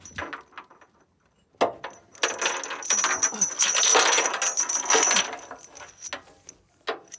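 Narrowboat's metal anchor chain paid out over the bow as the anchor is dropped. A few clinks, then a dense metallic rattle for about three seconds, thinning to scattered clinks near the end.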